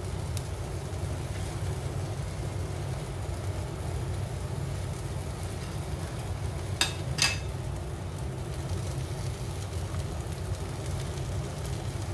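A steady low rumble of tortilla wraps heating in a frying pan on a lit gas hob, with two sharp clicks in quick succession a little past halfway.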